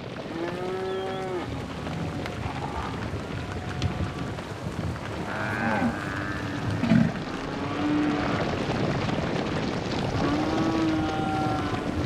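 A herd of white zebu cattle mooing: several long, drawn-out calls, one near the start and the others spread through, over the steady noise of the moving herd.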